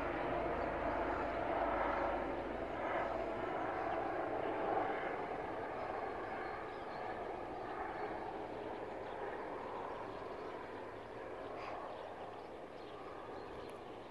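Airbus EC135 helicopter passing overhead and moving away, its sound fading steadily; the deep rumble drops away after about three seconds.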